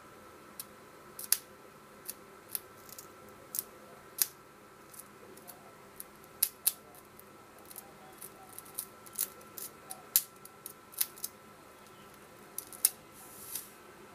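The end of a wire tapped again and again against the terminal of a small sealed lead-acid battery, shorting it: irregular sharp snapping clicks of the contact sparking, with a short hiss near the end as the shorted wire's insulation smokes.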